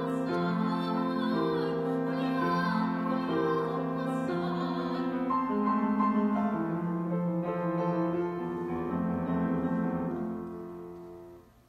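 Classical singing with piano accompaniment: a sustained vocal line with vibrato over piano chords, dying away near the end as the piece finishes.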